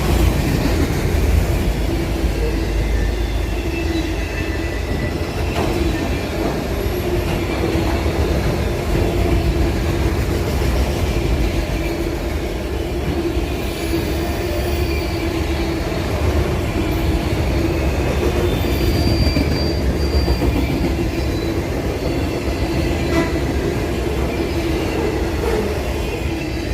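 Freight train rolling past: a steady rumble of railroad cars on the rails, with wheels squealing throughout.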